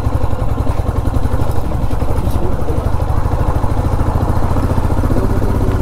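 Royal Enfield motorcycle's single-cylinder engine running steadily as the bike rolls at low speed over a rough gravel road.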